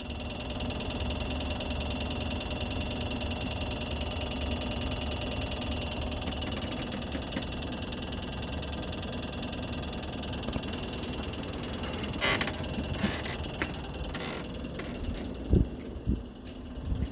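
New-model LG air conditioner outdoor unit running: a steady hum with several fixed tones over a low rumble. Scattered clicks start about twelve seconds in, and a couple of sharp thumps come near the end.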